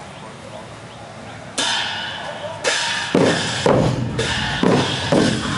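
A Lanna kong pu ja ensemble of hand-held knobbed gongs and drums starting to play: a sudden bright metallic crash about one and a half seconds in, another about a second later, then gong and drum strokes about twice a second.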